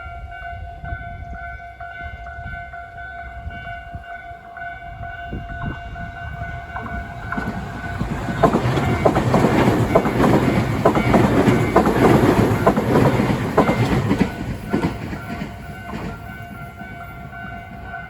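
Japanese level-crossing alarm ringing its standard electronic tone, two alarm units at different tempos. About eight seconds in, a Tobu Noda Line train passes for about six seconds, its wheels clicking over the rail joints and drowning out the alarm, which is heard again as the train goes.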